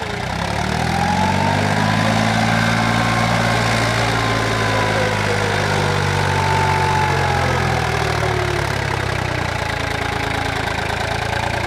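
Small tractor's engine running under load, its pitch rising over the first couple of seconds and then holding steady as it pulls through the mud.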